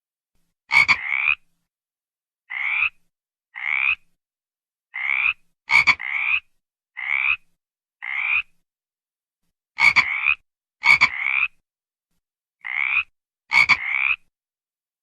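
A frog croaking in short calls, about a dozen of them, roughly one a second and sometimes in quick pairs. Several calls begin with a sharp click.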